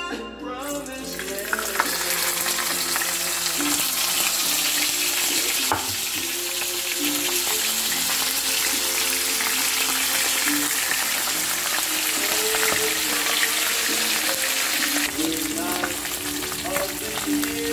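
Moonfish frying in hot oil in a pan: a dense, steady sizzle that starts about a second in as the fish goes into the oil. Soft background music plays underneath.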